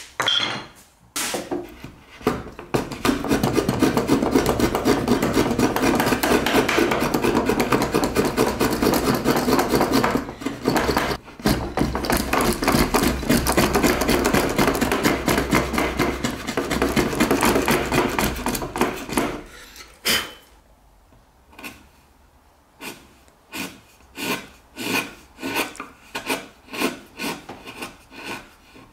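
Hand router plane cutting the bottom of a notch in wood in quick repeated scraping strokes, a dense run that stops about two-thirds of the way through. After a click, a chisel pares the corners in short separate cuts, about one a second.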